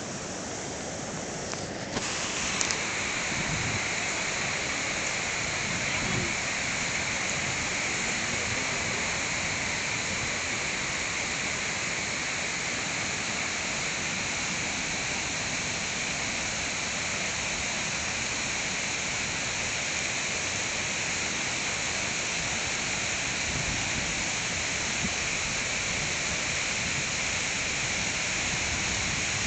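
Mountain stream rushing and tumbling over rocky cascades, a steady, even rush of water that grows a little louder about two seconds in.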